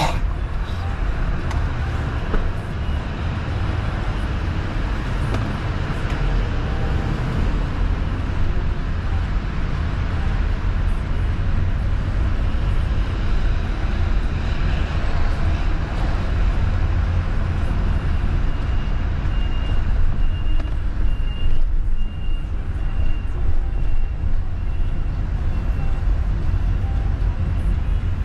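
Road noise inside a moving car on wet streets: a steady low rumble of engine and tyres with a hiss of tyres on wet pavement. A faint high tone comes and goes in short pulses in the second half.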